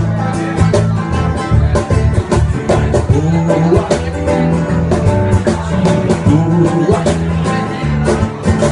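A live band playing a song, with guitar and a steady beat.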